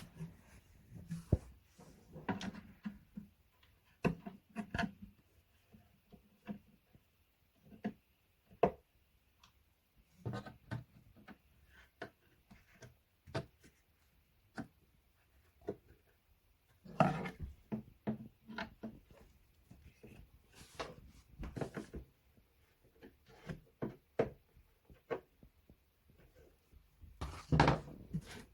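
Scattered light knocks, taps and clicks of flat-pack bedside table parts being handled during assembly, with a louder cluster of knocks about 17 seconds in and again near the end.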